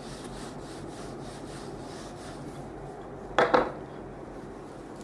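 Whiteboard duster rubbing across a whiteboard, wiping off the writing in repeated strokes, then a short loud knock about three and a half seconds in.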